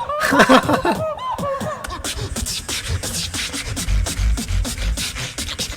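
Solo beatboxing: gliding, pitched vocal sounds, then from about two seconds in a fast run of sharp mouth-percussion hits with deep bass notes underneath around four seconds in.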